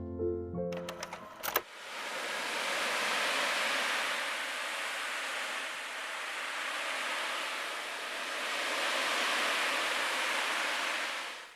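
Piano music stops about a second in. A steady rushing hiss follows, even and without pitch, swelling gently twice. It drops away just before the end.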